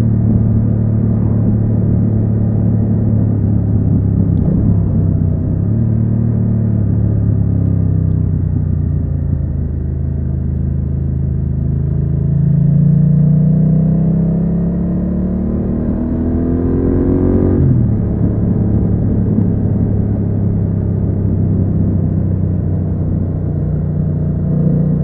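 BMW F900R's parallel-twin engine running under way, then revving up in one long steady rise through a gear and dropping suddenly at a gear change about two-thirds through, before settling back to a steady run.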